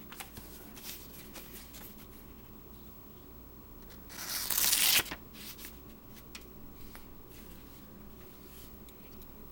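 Knife blade slicing through something thin: a rasping swish of about a second, near the middle, that grows louder as it goes. Small handling clicks come before and after it.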